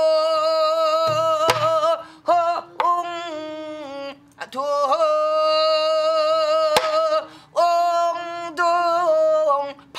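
A woman singing pansori: long, held phrases in a full, strained voice with a wavering vibrato, broken by short breaths. There are two sharp strikes on a buk barrel drum with a stick.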